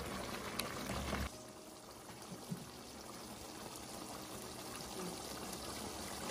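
Hilsa fish in mustard gravy simmering in a frying pan, a soft steady bubbling that grows slowly louder. The gravy is being cooked down until the oil separates, the sign that it is done. Spatulas handle the pan briefly at the start.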